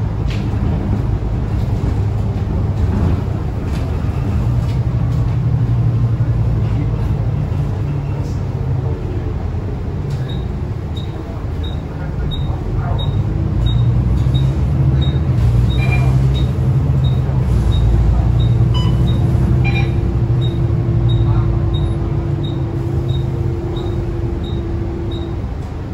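Volvo B9TL double-decker bus heard from inside: its six-cylinder diesel engine running under way, with road noise. From about ten seconds in to near the end, a light tick repeats about one and a half times a second, with a steady hum underneath.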